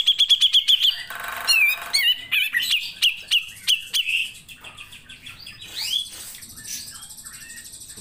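Cucak jenggot (grey-cheeked bulbul) singing: a fast run of sharp chips, about a dozen a second, then a harsh buzzy note and a string of varied whistles and chirps that tails off after about five seconds.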